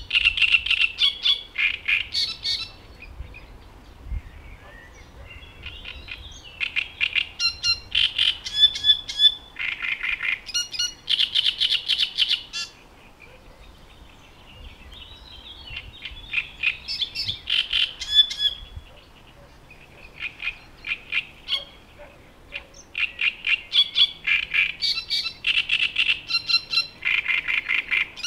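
A male great reed warbler singing: gruff, scratchy phrases of rapidly repeated harsh notes, delivered in rhythmic bursts of a few seconds separated by short pauses.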